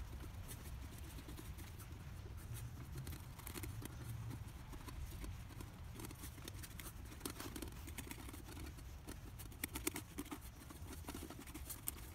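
Faint scraping and light clicking against a small metal camp cook pot as the baked pizza is loosened from the pot's sides. The clicks come more often in the second half, over a low steady background rumble.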